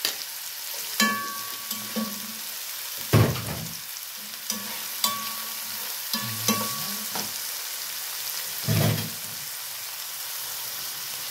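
Chopped onions sizzling in hot oil in an enamelled cast-iron pot, with a spatula scraping and knocking against the pot as they are stirred. Two heavier thumps come about three seconds in and again near the end.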